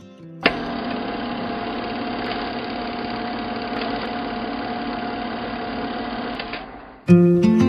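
The match footage's own live sound: a steady noisy bed with a constant hum and a few faint knocks. It cuts in suddenly about half a second in and ends shortly before loud strummed guitar music comes back in near the end.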